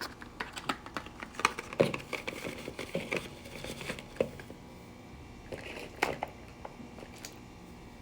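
Crinkling and rustling of packaging being handled, in dense bursts for the first four seconds or so and again briefly around six seconds in.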